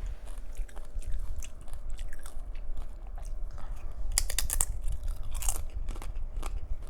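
Close-miked chewing with crisp crunches, most likely tortilla chips with salsa, with a loud cluster of crunches about four seconds in.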